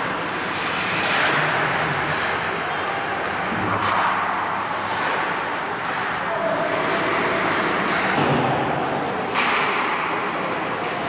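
Ice hockey play in a rink: a steady scraping hiss of skates on the ice, broken by a few sharp knocks of sticks, puck and boards, the sharpest about nine seconds in, with players' voices in the background.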